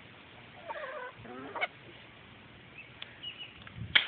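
A hen giving short calls about a second in while working at her nest and eggs, with a faint higher call about three seconds in. A sharp click just before the end is the loudest sound.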